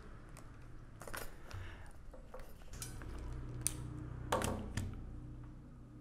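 Ratcheting crimper being squeezed shut on an open-barrel spade terminal: several separate, irregularly spaced metal clicks, the loudest about three and a half and four and a half seconds in. A faint low hum runs underneath.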